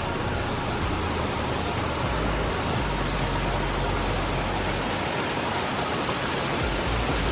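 Steady, even rush of water falling over Horsetail Falls, with an uneven low rumble beneath it.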